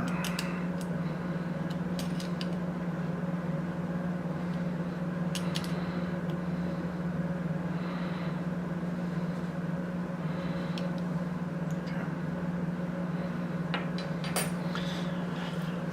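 Steady low hum with scattered small clicks and taps of hardware parts and a hand tool being handled as screws are tightened on the assembly.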